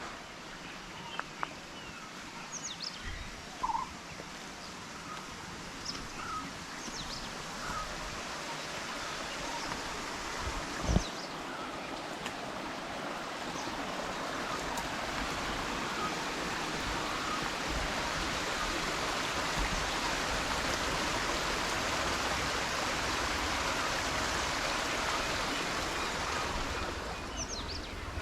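Running water of a stream, a steady rush that grows gradually louder over the second half. Scattered bird chirps come in the first several seconds, and there is a single sharp knock about eleven seconds in.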